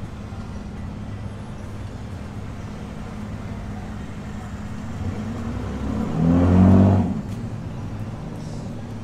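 Steady low rumble of street traffic engines. Then a passing vehicle's engine revs loudly, swelling from about five seconds in, rising slightly in pitch and dropping away just after seven seconds.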